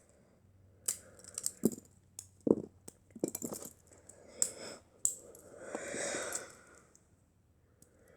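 Lego Technic pieces being pried apart and handled: irregular small plastic clicks and knocks, then a longer, softer scraping sound about six seconds in.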